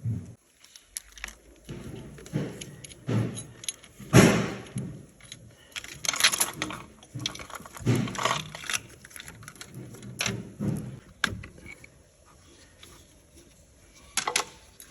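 Metal parts and hand tools clinking and rattling as they are handled, in a string of short irregular clicks with a few louder clattering bursts.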